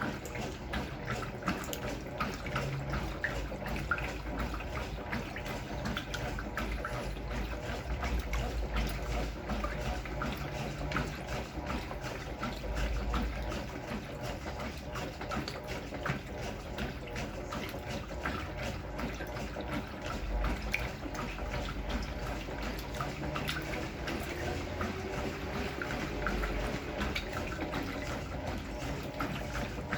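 Brastemp Clean 6 kg top-loading washing machine with water running and splashing in its drum, a steady wash of water noise with low thuds and small splashes throughout.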